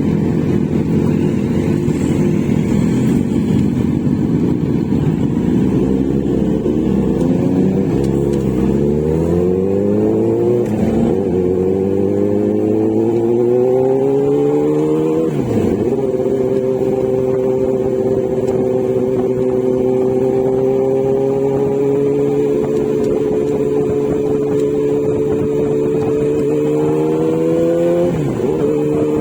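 Kawasaki Z900 inline-four motorcycle engine through its new exhaust, under way: the revs climb steadily, drop sharply with an upshift about halfway through, then hold at a steady cruise. A second shift comes near the end.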